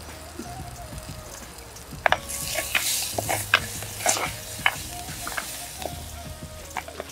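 Wooden spoon stirring curry in a clay pot over a wood fire, with sharp clicks of the spoon knocking the pot and a hiss from the hot, steaming contents that starts about two seconds in.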